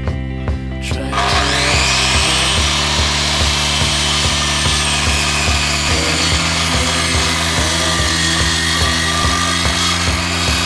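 A power tool cutting wood starts about a second in and keeps running, its whine wavering in pitch. Background music with a steady beat plays underneath.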